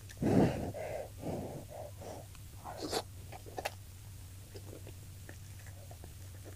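Close-miked eating sounds of a person eating fried tilapia. A loud breathy burst comes at the start, then a few chewing sounds, then a sharp breathy intake about three seconds in with a click after it. Faint mouth clicks follow over a steady low hum.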